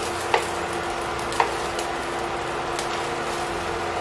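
Beaten eggs frying in hot oil in a pan, a steady sizzle, with a wooden spatula clicking against the pan twice in the first second and a half.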